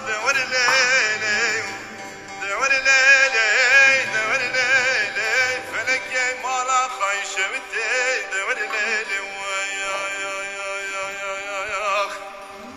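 A man singing a Turkish folk song in a melismatic style, with wavering, ornamented notes over a plucked string accompaniment. The voice holds a long note and stops near the end.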